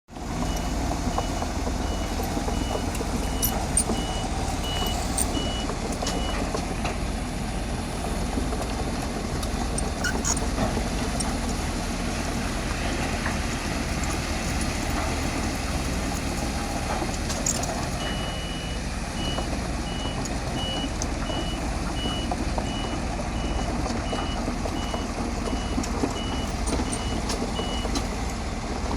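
Bulldozer's diesel engine running under load with occasional clanks, while a reversing alarm beeps about twice a second, once at the start for several seconds and again through the last third.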